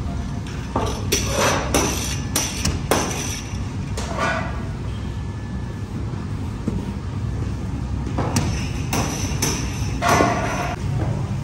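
Bakery workroom noise: a steady low rumble under scattered knocks, thuds and clatter as flatbread dough is rolled, docked and handled on the tables and on the cushioned pad used to load the oven.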